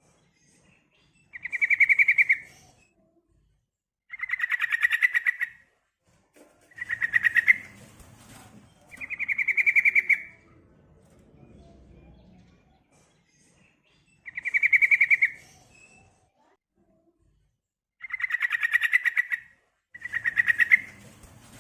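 Female yellow-vented bulbul (trucukan) calling: seven rapid chattering trills, each about a second long, repeated every two to three seconds. It is the female's call, used to lure males into answering.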